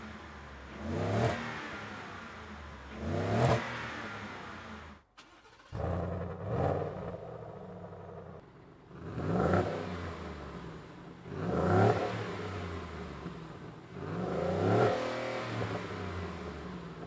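Ford F-150 5.0L V8 free-revving about six times, each blip rising in pitch and dropping back to idle. The first two revs are through the stock exhaust, then after a short break the rest are through the Roush Active dual cat-back exhaust, starting with its valve closed.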